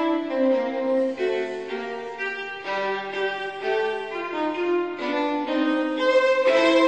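Background music: a bowed string melody, violin over a lower accompaniment.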